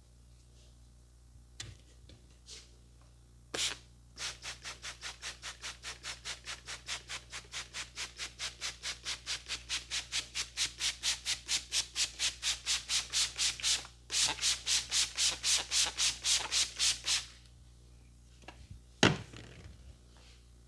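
Brisk rhythmic rubbing in a head massage, about four to five strokes a second, in two runs with a brief break; the second run is louder. A single sharp snap comes near the end and is the loudest sound.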